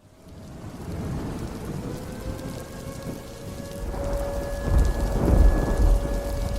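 Storm-like sound effect that cuts in suddenly from silence: a steady hiss of rain with a deep rumble that swells to its loudest about five seconds in, under a steady electronic hum.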